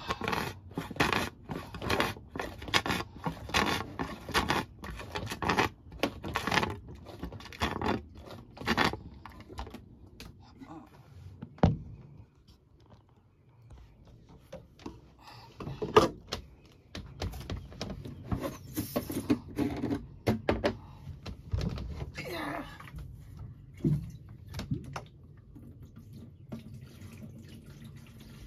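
Plastic parts of a portable sink being handled: a run of quick clatters, scrapes and rustles, a short pause, then scattered knocks as the water tank and a plastic water jug are set into place.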